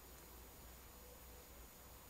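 Near silence: faint steady background hiss with a low rumble.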